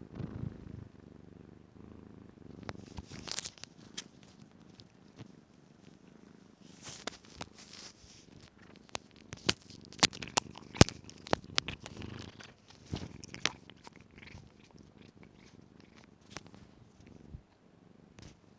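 A kitten purring, with a run of sharp clicks and crackles from its teeth biting and chewing on earphones, loudest in the middle of the stretch.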